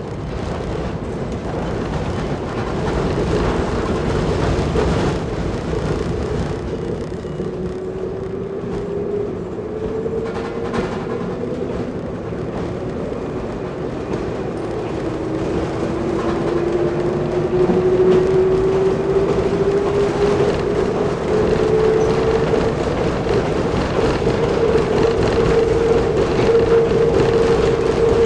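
Nanbu Jūkan Railway KiHa 10 railbus diesel engine pulling away and accelerating on the track. The engine note climbs, drops back once about halfway as it shifts up a gear, then climbs again and holds steady as the running gets louder.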